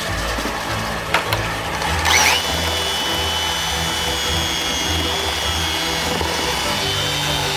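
A power tool's motor spins up about two seconds in, its pitch rising quickly, then runs at a steady high whine. A couple of sharp knocks come just before, and background music plays underneath.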